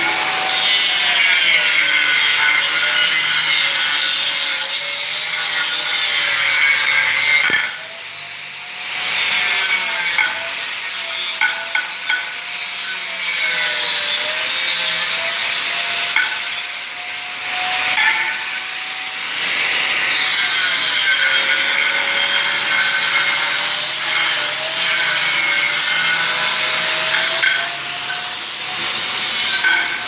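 Handheld electric angle grinder cutting into stainless steel railing pipe: a harsh, continuous metal-grinding screech over the motor's whine. The whine sags in pitch as the disc bites and climbs back as it eases off. The sound drops away briefly about eight seconds in.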